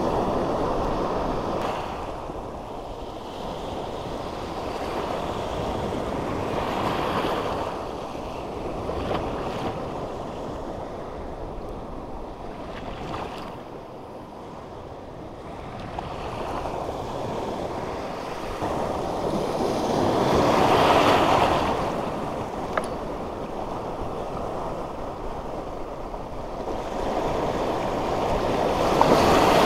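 Sea surf washing over a shallow coral reef flat, the rush swelling and easing with each wave, with wind buffeting the microphone.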